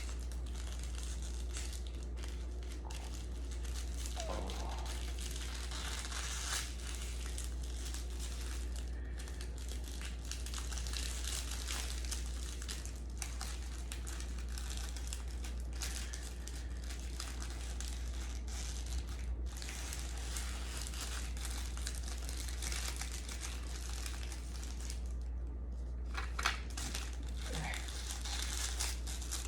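Plastic film wrapper of an onigiri crinkling and crackling continuously as it is handled and pulled off the rice ball, over a steady low hum.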